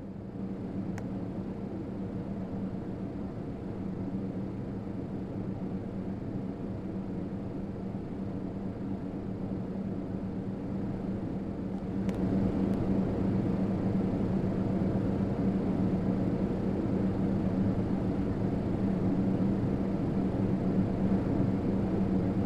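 Hampton Bay Windward II ceiling fan running, with a steady motor hum over the rush of the blades. A click comes about halfway through, after which it runs louder.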